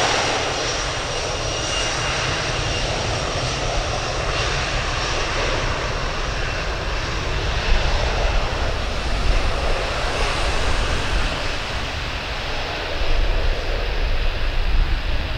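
Boeing 737-500's CFM56 jet engines running loud and steady as the airliner rolls along the runway, a dense roar with a deep rumble underneath. A faint high whine falls in pitch about ten seconds in.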